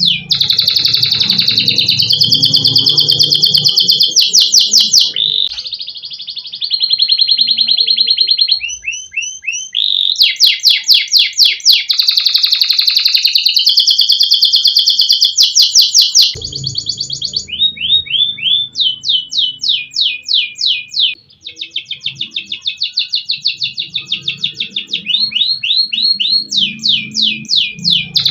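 Adult canary singing continuously: fast trills of repeated notes, switching to a new note type every second or two. A faint low hum runs under parts of the song.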